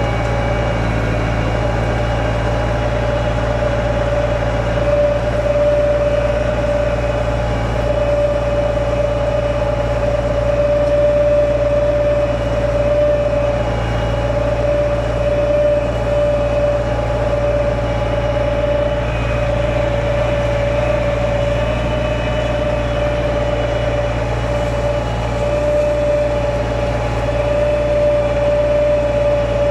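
Tümosan 8280 tractor engine running steadily under load while pulling a four-furrow reversible plough through the soil, with a steady whine over the low engine note.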